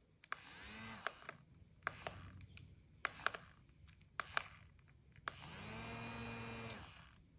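Small electric fan's motor whirring in short bursts, switched on and off several times with sharp clicks, the longest run lasting about a second and a half near the end.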